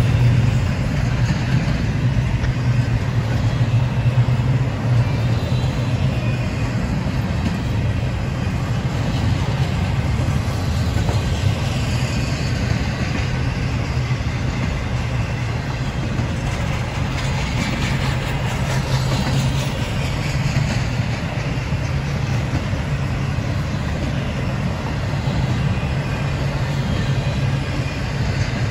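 Double-stack intermodal well cars of a freight train rolling past, a steady rumble of steel wheels on the rails.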